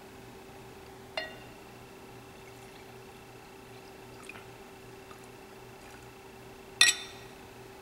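Wine being poured from a glass bottle into a stemmed wine glass, a faint trickle. A light glass clink rings about a second in, and a louder, ringing clink of glass on glass comes near the end.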